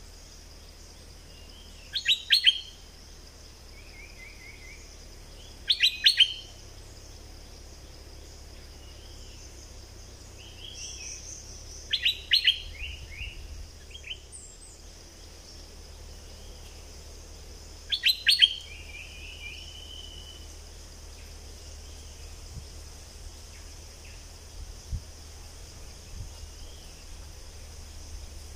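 Stripe-throated bulbul song: four loud bursts of quick notes, a few seconds apart, with softer chirps and short trills between them.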